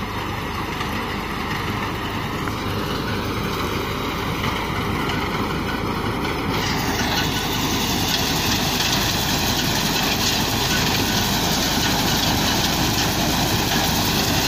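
Straw reaper (bhusa machine) and its engine running steadily. About six and a half seconds in, a louder high hiss joins the drone.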